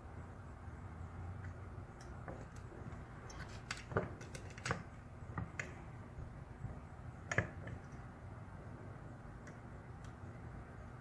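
Faint metallic scraping and clicking of a lock pick and tension wrench working inside a dimple cam lock, with a few sharper ticks, the loudest about four and seven seconds in.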